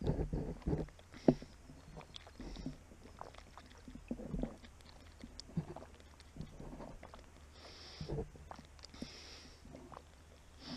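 A person gulping water from a plastic bottle: a run of soft swallows with small clicks, and two short hissing breaths near the end.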